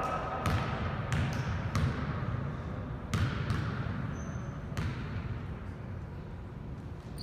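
Basketball bouncing on a gym floor, about five separate bounces at uneven intervals in the first few seconds, as a player dribbles at the free-throw line before shooting. A steady low gymnasium rumble lies underneath.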